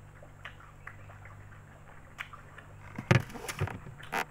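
Close-mic eating sounds: soft chewing of spaghetti with small mouth clicks over a steady low hum. Louder rustles and knocks come about three seconds in and again near the end, as the fingers pick raw kenikir leaves from the plate.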